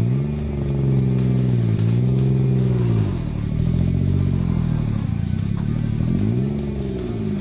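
Nissan GT-R GT3 race car's twin-turbo V6 running at low speed as the car pulls away, its revs rising and falling several times.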